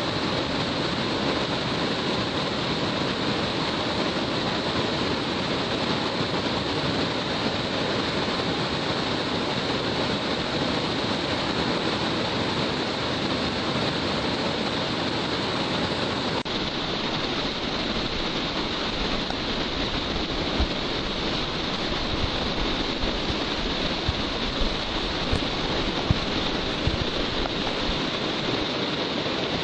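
Waterfall pouring in a steady rush of falling water, with a few short low bumps of wind on the microphone in the second half.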